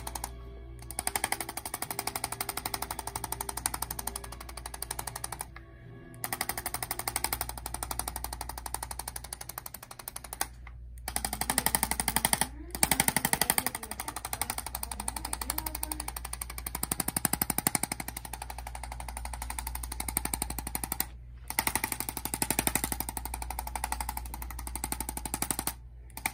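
Handheld chiropractic adjusting tool tapping rapidly and evenly against the neck, in runs of a few seconds broken by about six short stops.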